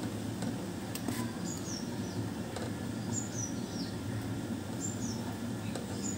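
A small bird calling: a short, high chirp that steps down in pitch, repeated about four times at even intervals, over a steady low background hum. A single tap is heard about a second in.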